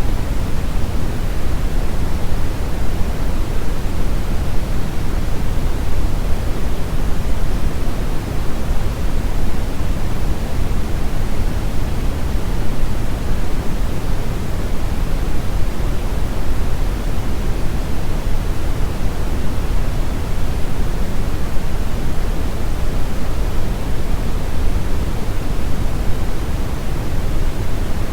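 Steady synthetic noise, a constant hiss heavier in the low end than at the top, with no change in level or character.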